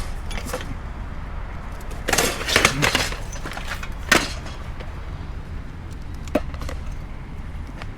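Hard objects clattering as they are handled: a cluster of knocks and clinks about two to three seconds in, then single knocks near four and six seconds, over a low steady rumble.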